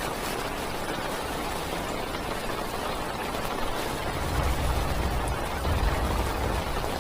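Heavy rain drumming on a parked car's roof and windows, heard from inside the car as a steady hiss. About four seconds in, a low rumble swells for a couple of seconds and then fades.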